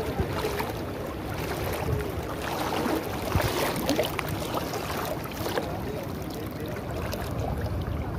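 Water sloshing and splashing irregularly around a man wading waist-deep as he works his hands through the water, gathering in a cast net. There are small splashes throughout and no single loud event.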